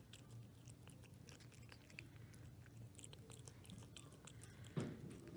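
A cat eating wet pâté from a metal bowl: faint, quick wet clicks and smacks of chewing and licking. One louder knock near the end.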